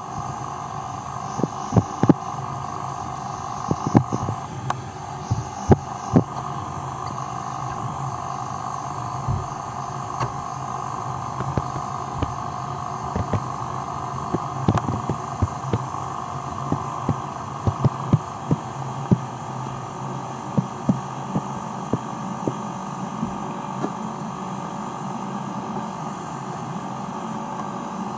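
Water agitated and bubbling in a basin around a submerged work boot: a steady hum with irregular soft knocks and pops scattered throughout.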